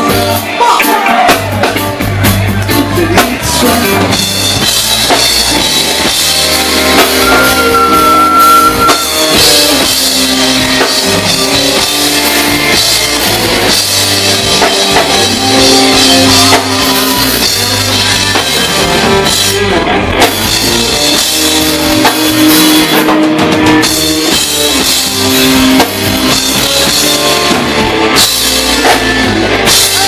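A live reggae band playing loudly, led by drum kit and bass guitar, with a voice singing at times.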